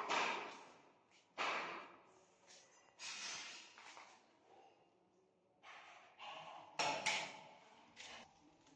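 Mason's trowel scraping and tapping on mortar and stone while granite stair treads are set, in about seven separate short strokes that each start suddenly and fade away.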